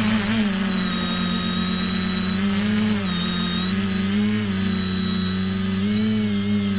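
X550AIOP quadcopter's electric motors and propellers humming steadily, with a high whine above the hum. The pitch dips briefly and comes back a few times as the throttle changes.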